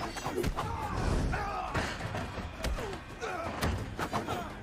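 Fight sound effects: repeated hard hits and body thuds, with men grunting and yelling, over background music.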